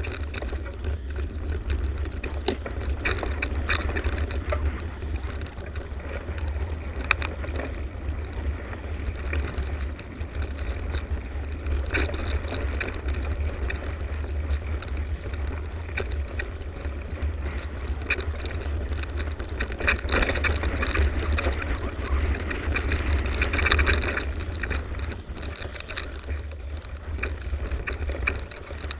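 Mountain bike rolling over a dirt singletrack, its tyres crunching and the bike rattling with sharp knocks over bumps. Under it, a steady low rumble of wind and vibration on the bike-mounted camera's microphone.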